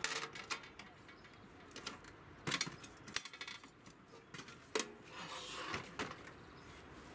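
Portable cassette-gas heater being handled: scattered metal clicks and knocks as a gas cartridge is fitted into its compartment and the cover worked, the sharpest about two and a half and nearly five seconds in.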